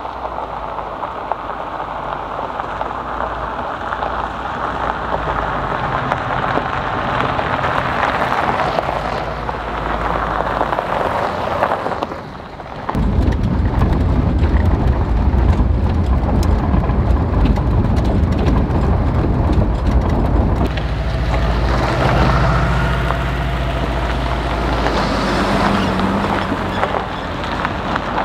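Vehicles driving on a gravel road, with tyres crunching and engines running. About halfway in there is a sudden change to a heavy low engine and road rumble heard inside a vehicle's cab. Near the end the rumble eases to vehicles running past on the gravel.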